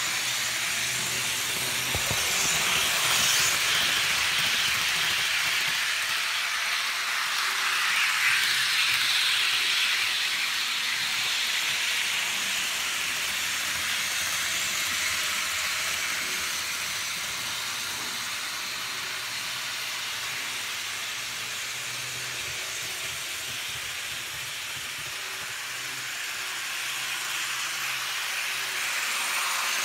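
HO-scale model trains running on the layout's track, led by a Lima DSB Class MZ diesel locomotive pulling passenger coaches: a steady hissing rush of small wheels on the rails and the motors whirring, with a faint low hum. It swells louder twice in the first ten seconds as the trains pass close.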